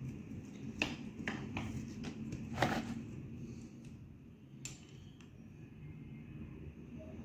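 Scattered light clicks and taps of hands handling the thin twisted wire and small bulbs of a string of decorative lights, about six in all, the loudest a little under three seconds in, over a steady low hum.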